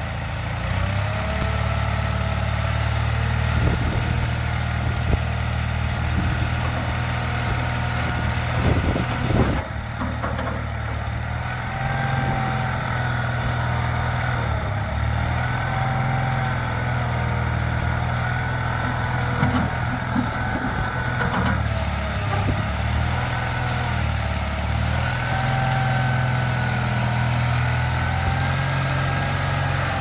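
Gehl 360 skid steer loader running steadily as it is driven and its loader arms are raised. A whine rises and falls in pitch over the engine note, and there are a few knocks about nine seconds in.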